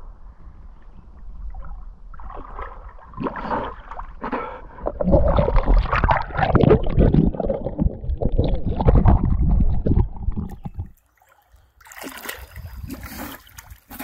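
River water sloshing and splashing around people wading in it, over a low rumble on the microphone. The sound drops out for about a second near the end, then the splashing picks up again.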